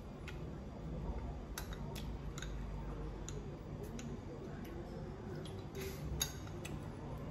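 Light clicks and taps at irregular intervals, about a dozen in all, with a sharper click a little after six seconds, over a low steady hum.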